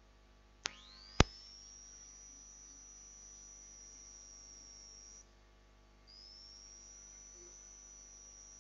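Two sharp clicks, the second louder, then a thin, high-pitched electronic whine that glides up and holds steady; it cuts out for about a second midway and comes back with a slight rise in pitch.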